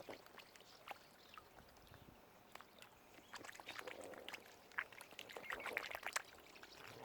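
Light splashing and trickling of water with scattered small clicks, busiest past the middle.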